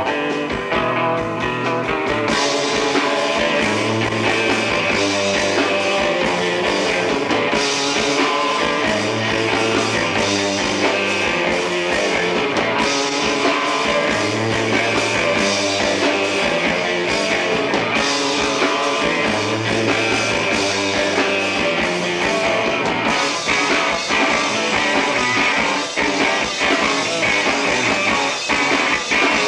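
Live rock band playing: drum kit with cymbals and a hollow-body electric guitar, with a low riff that repeats every few seconds over a steady beat.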